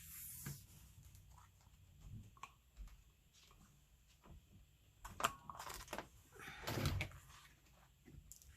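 Faint handling of scrapbook paper and craft tools: scattered small clicks and rustles, with a sharp click about five seconds in and a louder rustle a little later, as a brad and hole-punching tool are put to the page.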